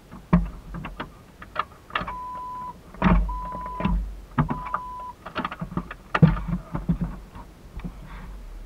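Three evenly spaced electronic beeps at one steady pitch, each about half a second long, among scattered knocks and thumps.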